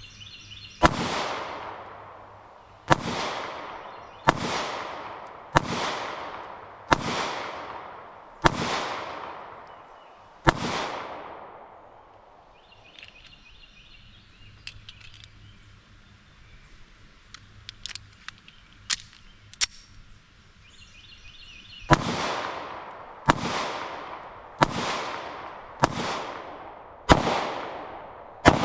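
Kimber Micro 9 pistol firing 9mm rounds: seven shots one to two seconds apart, each with a long echoing tail, then a pause with a few small clicks of a magazine change, then six more shots at a similar pace.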